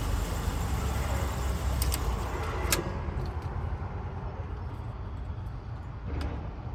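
A motor vehicle's engine runs steadily. A sharp click comes about three seconds in, after which the sound is quieter, with a few faint ticks.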